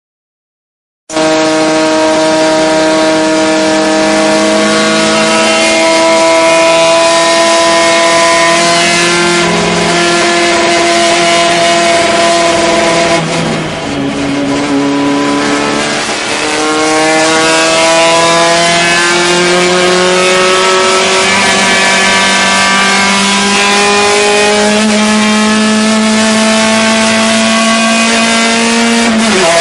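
Fiat 128 race car's 1.1-litre four-cylinder engine heard from inside the cabin, running hard at high revs, its pitch climbing slowly. About halfway through the revs drop sharply as the throttle is lifted, then climb steadily again, with another sudden drop at a gear change near the end.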